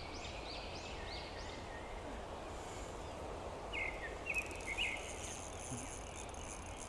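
Songbirds calling over a steady low outdoor background: a quick run of repeated rising-and-falling whistled notes in the first second or so, then a few short chirps about four seconds in.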